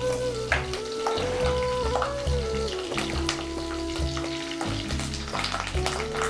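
Oil sizzling in a pan as food fries, with a spoon stirring and scraping in frequent sharp clicks. Instrumental background music with a stepping melody plays under it.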